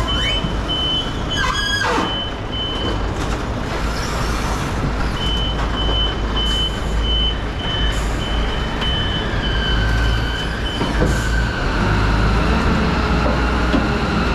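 Caterpillar forklift running under load as it sets a load on a trailer bed, its warning beeper sounding about three times a second. The beeping pauses for a couple of seconds, then resumes and stops near the end. A brief squeal sounds about two seconds in.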